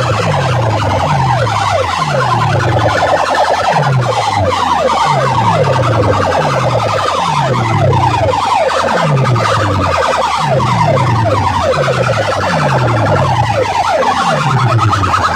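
A siren-style DJ effect blasted through large competition sound-system speakers. Falling sweeps layer over a deep bass glide that drops about once a second.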